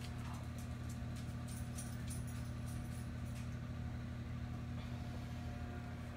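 Steady low machine hum of kitchen room tone, with a few faint ticks of handling.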